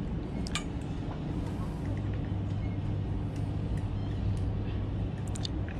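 A motor running steadily with a low, even drone, with a few short ticks about half a second in and again near the end.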